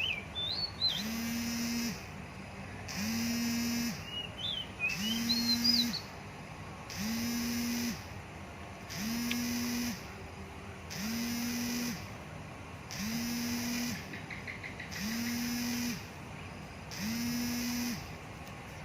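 Oriental magpie-robin giving short whistled phrases near the start and again about four to six seconds in. Under it a low buzz with a hiss switches on for about a second every two seconds, over and over.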